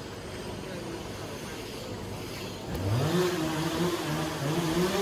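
A low rumble, then about three seconds in a machine motor spins up with a quickly rising hum and settles into a louder, slightly wavering running note.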